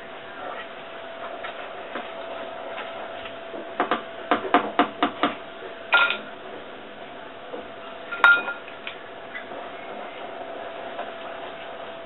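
A plastic spatula knocking against a stainless steel saucepan in a quick run of about seven strokes about four seconds in, then two clinks with a short ring as it is laid on and lifted off a ceramic bowl, at about six and eight seconds. A steady hum runs underneath.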